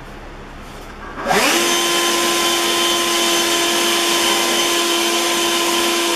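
Atlas 80V cordless electric leaf blower spinning up quickly a little over a second in, then running steadily at full speed: a loud rush of air over a steady motor whine.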